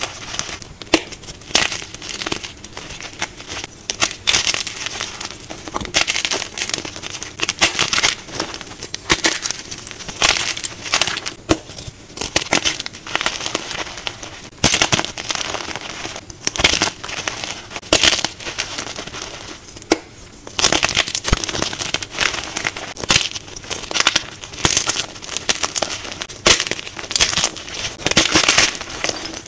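Hands crushing dyed gym chalk blocks and squeezing handfuls of loose chalk chunks and powder: an irregular run of crunching, crumbling crackles.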